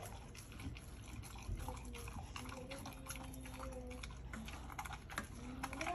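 Pit bull eating raw meat from a metal bowl: wet chewing and smacking, heard as a dense run of small clicks.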